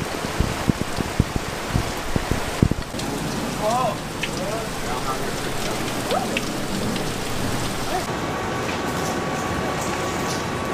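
Heavy rain pouring down, with heavy drops knocking close by during the first three seconds. Faint voices come through the rain around the middle, and a thin steady tone comes in near the end.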